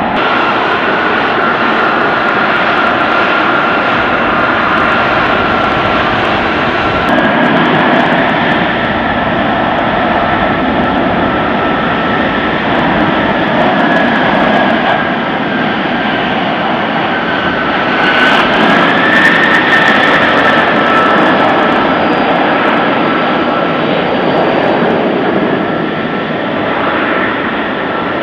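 F-35B Lightning II's F135 jet engine running with a steady high whine over a loud rush of jet noise. About two-thirds of the way through, the whine rises in pitch and the engine grows louder for a few seconds before settling again.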